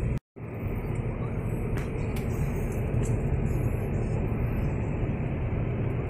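Steady road and engine rumble heard from inside a moving car's cabin, dropping out for a split second just after the start.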